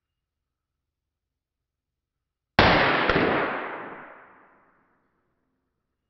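A single shot from a long-barrelled Luger P08 pistol, about two and a half seconds in, followed by a long echoing decay of about two seconds inside the enclosed range.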